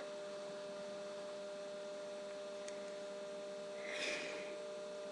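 Steady electrical hum made of a few fixed tones, with a faint short breathy swell about four seconds in.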